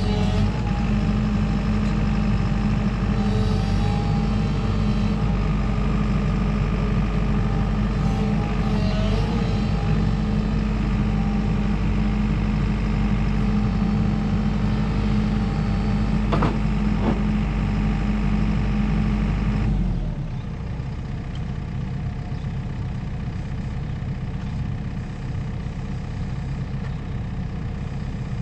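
JCB JS145WT wheeled excavator's diesel engine running steadily under hydraulic load as the boom and bucket are worked, with two brief sharp sounds around sixteen and seventeen seconds in. About twenty seconds in the engine drops to a lower, quieter idle and the higher hydraulic sound falls away.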